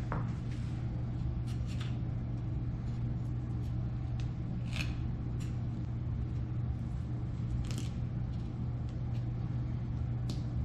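A steady low hum, with a few short scrapes of a knife working on a fish scattered over it, about six in all.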